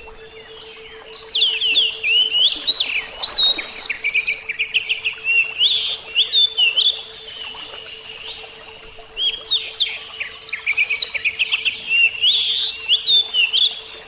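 Songbirds chirping and trilling in quick, rapid-fire bursts: two busy spells of song, the first from just over a second in, the second from about nine seconds in, with a short lull between.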